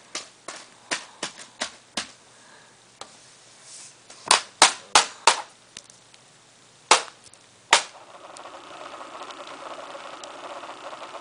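Sharp clicks and snaps of hard plastic and metal parts as a graphics card is fitted into a desktop PC, loudest in a cluster about four to five seconds in. About eight seconds in a steady whir starts: the computer's fans spinning up as it powers on.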